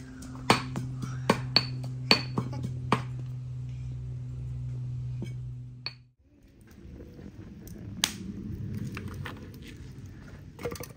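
Kitchen utensils clinking and knocking: several sharp clicks in the first three seconds over a steady low hum that stops suddenly about six seconds in, followed by a low rushing noise with one more sharp clink.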